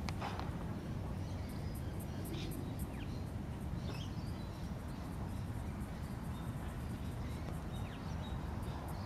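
Open-air ambience: a steady low rumble under scattered short bird chirps and a faint, fast, high insect-like ticking.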